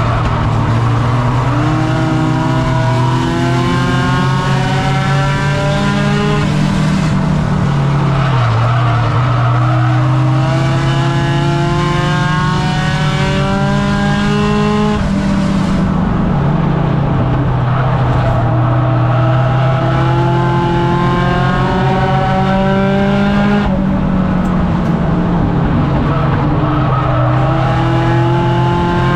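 Race car engine heard from inside the cockpit, climbing steadily in revs along each straight and dropping back as the driver lifts for the turns, three times in regular cycles of about eight seconds.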